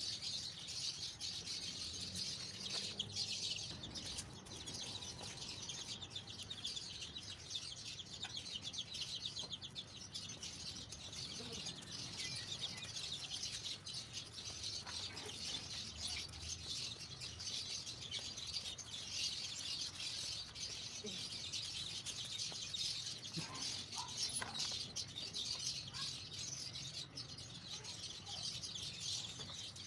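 Steady chorus of high-pitched chirping from many small birds, dense and unbroken throughout.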